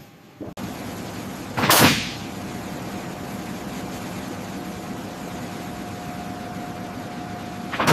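Steady engine drone with a faint constant tone, starting abruptly about half a second in. A brief loud rush of noise comes about two seconds in, and another near the end.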